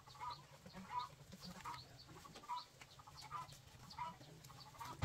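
Chickens clucking softly, short calls repeating a little more than once a second.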